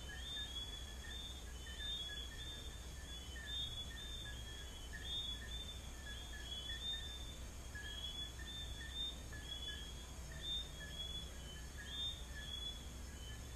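A night chorus of many small frogs giving short, high whistled notes several times a second, the callers overlapping. A steady high chirring of crickets runs underneath.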